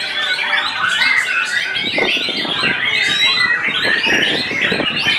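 White-rumped shamas singing in competition: a dense, loud tangle of overlapping whistles, trills and chatter. A rough rattling noise joins underneath about two seconds in.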